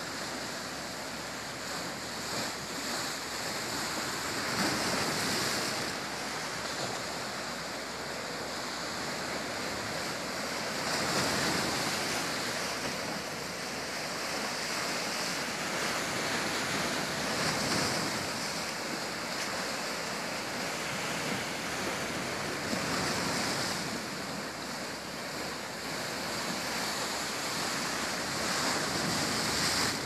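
Sea surf: waves breaking and washing in as a steady hiss of foam, swelling with each wave about every six seconds.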